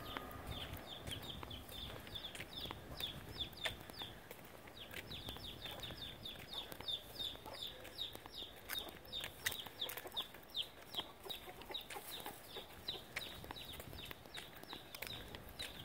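Free-roaming chickens calling: a rapid, continuous run of short, falling high-pitched peeps, several a second, with scattered sharp clicks among them.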